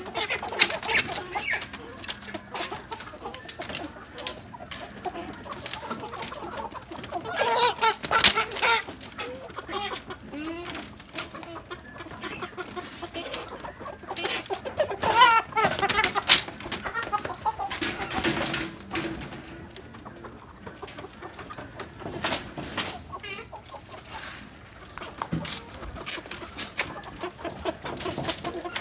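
Freedom Ranger meat chickens clucking as they are lifted from plastic crates, with loud bursts of calling about a quarter of the way in and again around halfway.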